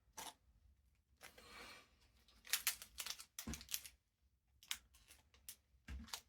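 Trading cards being handled and slid against one another, a series of light clicks and short paper-like swishes.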